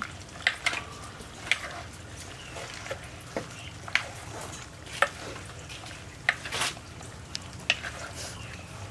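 Metal spoon tossing a chopped long-bean, tomato and chili salad in a wooden mortar: irregular sharp clicks and taps, about one a second, as the spoon knocks the mortar and vegetables.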